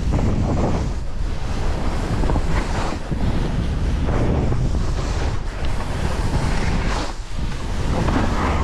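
Wind rushing over the microphone of a skier's worn camera during a fast downhill run, mixed with the hiss and scrape of skis over snow; the noise rises and falls unevenly as the skier turns.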